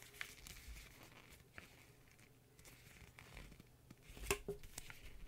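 Sony WH-1000XM4 headphones being handled: soft rubbing of fingers on the plastic earcups and headband, with scattered light clicks and one sharper click about four seconds in.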